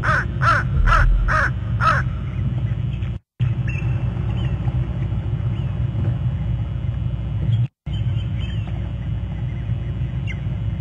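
A crow cawing five times in quick succession, then faint high chirps over a steady low rumble. The sound cuts out completely twice for a moment.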